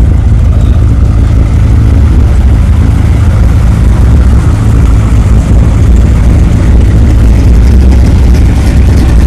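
Hot rod engines rumbling at low speed as the cars roll slowly past close by: a deep, steady low rumble.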